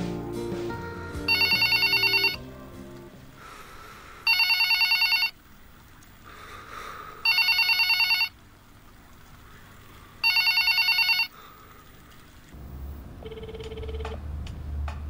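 Telephone ringing unanswered: four electronic trilling rings, each about a second long and three seconds apart. After the last ring a low drone with a short repeating beep begins.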